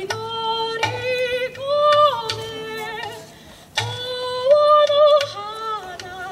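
A woman singing a slow melody, with long held notes that waver and slide between pitches, over a rhythmic accompaniment with regular sharp strikes and a low pulsing beat. Her voice briefly drops away a little past the middle and comes back in.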